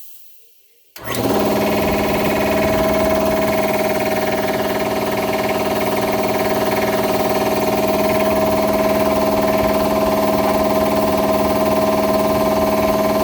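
Air compressor with a newly fitted pump unit starting suddenly about a second in, then running steadily at a constant pitch.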